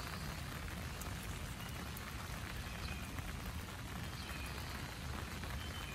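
Steady rain falling on the trees and grass of a park, an even hiss with no breaks.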